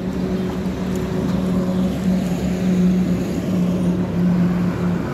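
A vehicle engine running steadily, a low even hum, over the noise of road traffic.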